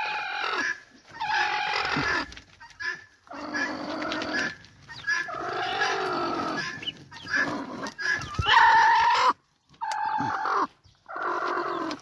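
Hen making a string of drawn-out calls, each about a second long with short gaps between.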